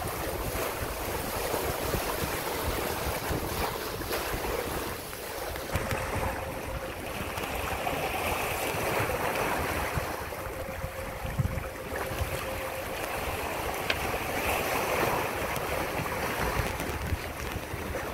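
Water rushing and hissing in the foaming wake of a Hunter 356 sailboat under way, swelling and easing every few seconds as the waves pass. Wind buffets the microphone in a gusty low rumble.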